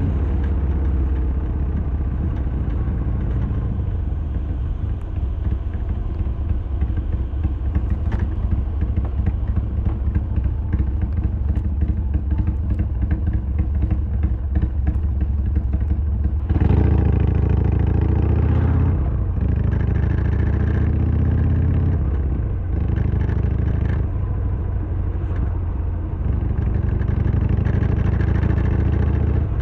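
Harley-Davidson Sportster XL1200R's V-twin running on the move, with a clattering rattle over it, the rattle the rider is tracking down and suspects is the side stand. The engine gets louder a little past halfway, then eases and picks up again.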